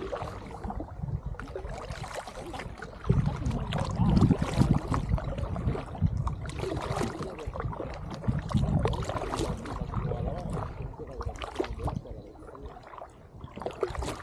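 Paddling an inflatable kayak: the paddle dips and water splashes and trickles in an irregular rhythm. There is heavier low rumbling about three to five seconds in and again near nine seconds.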